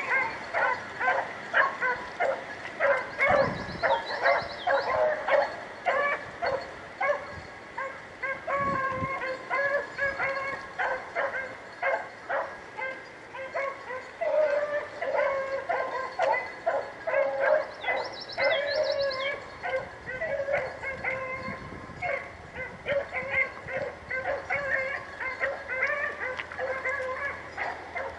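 A pack of rabbit hounds baying in quick, overlapping yelps, several a second without a break: the sound of the dogs running a rabbit on its trail.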